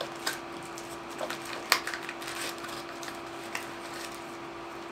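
Paper and plastic packaging of a spare drone propeller packet being handled: scattered crinkles and clicks, the sharpest about a second and a half in, over a steady low hum.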